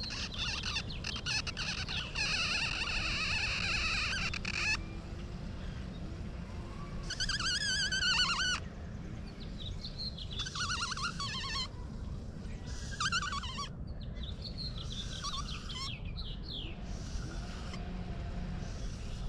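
Songbirds singing in a string of short, high warbling phrases with pauses between them, over a steady low background rumble.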